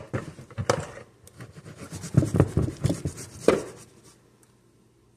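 A utensil scraping and knocking against a glass baking dish while pudding is spread, in irregular strokes that stop about four seconds in.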